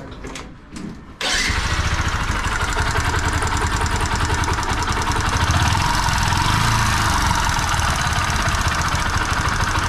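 Bajaj Discover 125 ST motorcycle's single-cylinder engine starting about a second in and then idling steadily with a fast 'tik tik' ticking that a recent engine rebuild did not cure; on opening the engine the mechanic finds the old cam chain loose.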